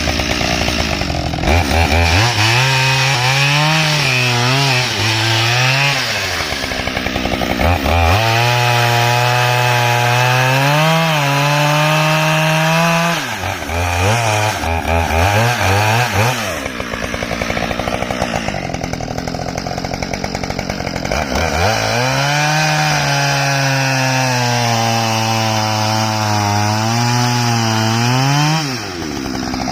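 Husqvarna 572 XP two-stroke chainsaw cutting wood at full throttle. In three long cuts its engine pitch drops and wavers under load, and it picks back up to a higher pitch between cuts.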